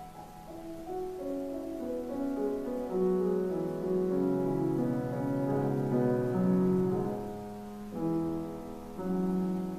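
Solo piano playing slow, sustained chords whose notes ring over one another. It swells louder through the middle and softens, with new chords struck near the end.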